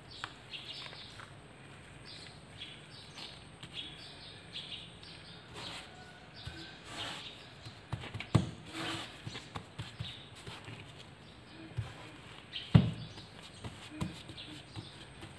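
Soft, slightly sticky bread dough being kneaded and folded by a gloved hand on a floured silicone mat: faint squishing and patting, with small squeaks and a couple of soft thumps about eight and thirteen seconds in.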